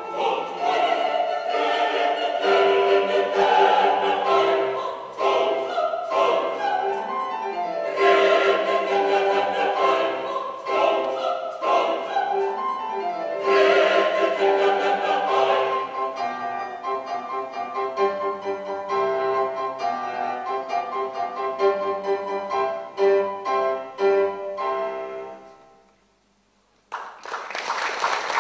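Voices singing in a classical, operatic style with piano accompaniment. The music dies away about 26 s in, and applause breaks out near the end.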